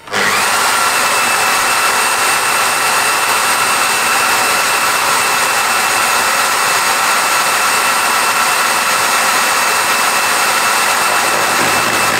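High-speed motor driving a disc gear cutter on a lathe-mounted gear-cutting rig. It switches on with a quick rising whine, then runs at a steady high-pitched whine while teeth are cut into a gear blank.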